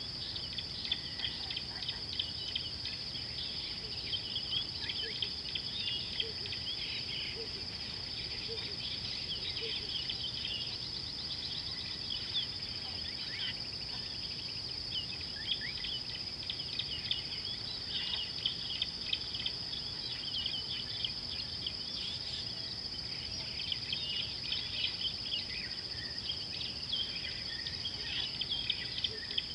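A steady high-pitched insect drone with many short bird chirps and calls scattered over it.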